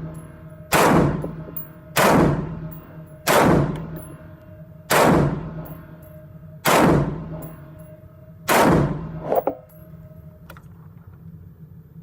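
Black Rain Ordnance Fallout 15 AR-15 rifle in 5.56 firing six single shots at an unhurried pace, each followed by a ringing echo, and then a lighter click.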